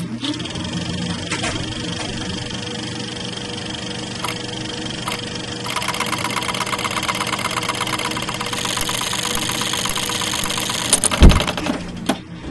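Rapid, rhythmic mechanical clattering of a cranked Mutoscope-style viewer, growing faster and denser about six seconds in. About eleven seconds in comes a loud, low bang, the loudest thing here, as the overworked machine bursts into smoke.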